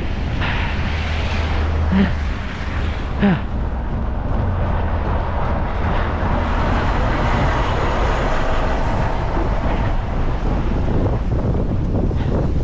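Blizzard wind buffeting the microphone in a steady low rumble, with a rushing hiss that swells midway and eases off.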